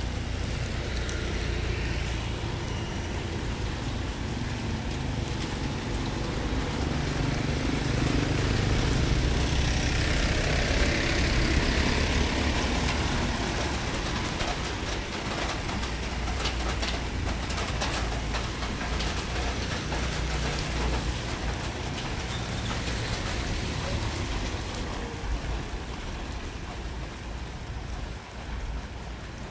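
Steady drizzle over a low rumble of road traffic; a passing vehicle swells up and fades away around ten seconds in, and scattered drops tick in the middle stretch.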